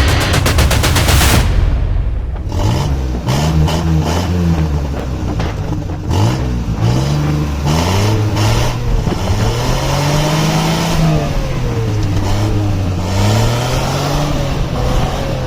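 Modified Suzuki Bolan engine being revved repeatedly through an aftermarket exhaust, the pitch climbing and falling back in a series of blips, with a few sharp cracks in between.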